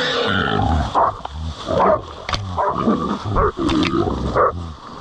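Feral boar squealing and grunting in a string of loud, harsh calls, several a second or so apart: the distress noise of a pig caught and held by hunting dogs.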